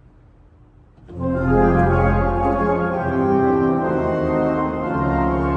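Compton pipe organ coming in about a second in with loud, full sustained chords over a deep pedal bass: the stormy opening of a piece in F minor.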